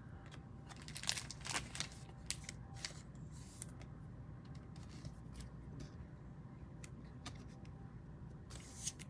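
Trading cards being handled: faint scattered clicks and rustles of card stock.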